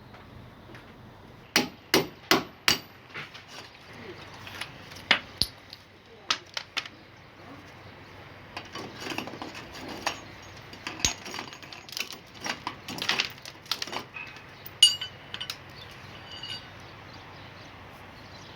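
Sharp knocks and metallic clinks as a split air conditioner's indoor unit is worked onto its wall mounting plate: four quick strikes near the start, then scattered knocks and a short ringing clink later on.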